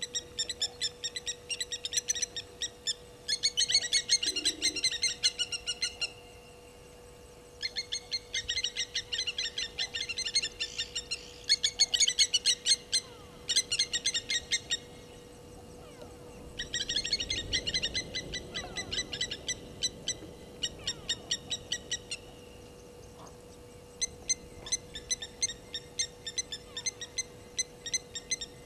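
Fast series of high-pitched chirps from a calling animal in the bush, about five a second, coming in bouts of a few seconds with short pauses between them. A steady faint hum runs underneath.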